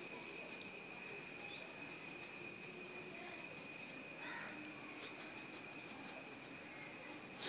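Insects droning steadily in a high, unbroken tone, with a few faint brief sounds now and then.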